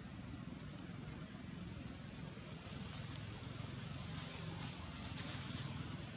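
Dry leaf litter rustling and crackling, thickest from about two and a half seconds in until near the end, over a steady low rumble. A few short, high chirps come earlier.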